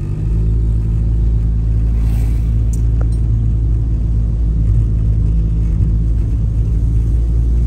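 Car engine and tyre noise heard from inside the cabin while driving: a steady low drone.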